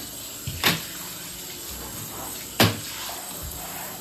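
Hand-held shower head spraying water onto a bathtub to rinse it. There is a steady hiss of spray, with two sharp knocks, the second one louder.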